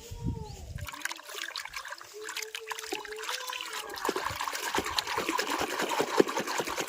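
Water running and splashing, a dense crackly spatter that starts about a second in and stops near the end.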